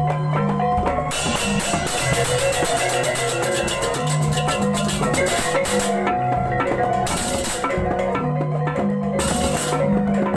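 Balinese marching gamelan (beleganjur) playing: kettle gongs and gongs sound pitched strokes over two-headed kendang drums, with rapid cymbal clashing that drops out briefly twice.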